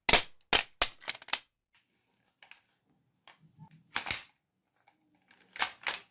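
A quick run of five sharp, shot-like snaps in the first second and a half, then scattered clicks and knocks of a plastic toy MP40 gel-ball blaster being handled, the loudest about four seconds in and a close pair near the end.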